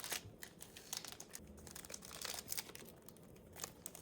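Faint, irregular crinkling and rustling of packaging as the contents of a Pokémon Elite Trainer Box are handled, with small scattered taps.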